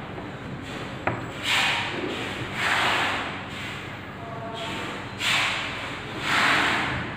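Plastic packaging crinkling and rustling in several short bursts as it is handled and pulled open, with one sharp click about a second in.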